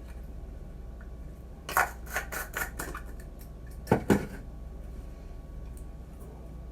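Double-edge safety razor cutting through lathered stubble, a short run of crackling scrapes about two seconds in. About four seconds in there are two sharp knocks close together.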